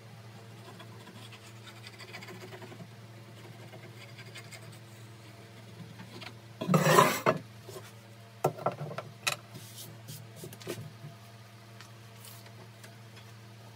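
A hardwood board and measuring tools handled on a workbench while a cut line is marked. There is one scraping slide about seven seconds in, then a few short knocks and clicks, over a steady low hum.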